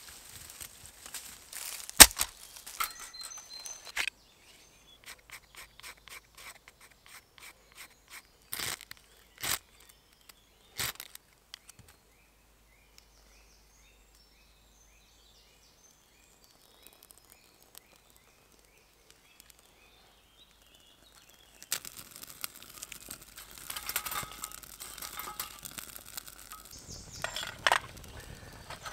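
Birch bark being scraped and torn with a knife for fire tinder, in short sharp scrapes and rips, followed near the end by rustling of leaf litter and handled kit. In a quiet stretch in the middle, a bird chirps faintly and repeatedly.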